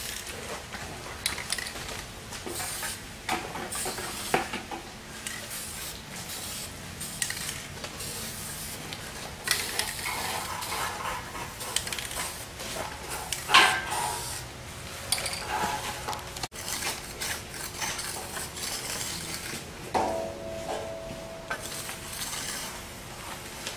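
Scattered metallic clinks, taps and scrapes of hand tools working against a steel stud frame, with a short ringing clang about twenty seconds in.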